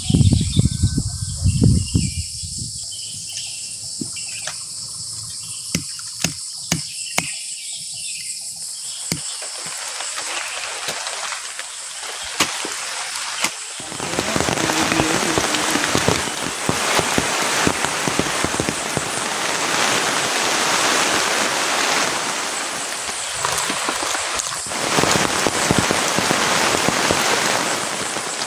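Rain falling, with scattered drips and taps in the first part, becoming a heavier, denser downpour about halfway through, over a steady high insect drone. A low rumble sounds in the first two seconds.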